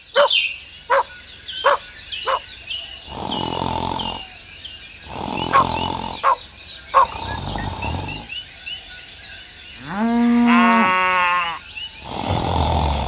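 Birds chirping throughout, with four roughly one-second bursts of coarse, noisy animal calls. About ten seconds in, a single long pitched animal call with a bending pitch rings out, like a low or moo.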